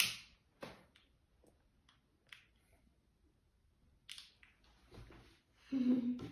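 A stick lighter being clicked to light a candle: a few faint, scattered clicks and taps. Near the end a short voice sound breaks in, the loudest thing heard.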